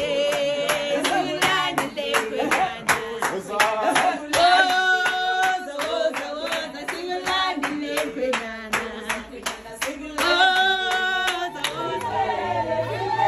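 A group singing a song with steady hand-clapping in time, about four claps a second. Near the end the clapping stops and lower singing voices take over.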